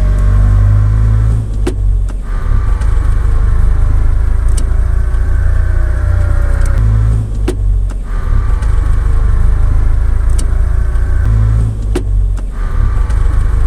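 A car's differential whining under acceleration over heavy drivetrain rumble. The whine builds in long pulls and breaks off three times with a sharp click. The noise appears only when accelerating, which can come from worn bearings inside the differential housing.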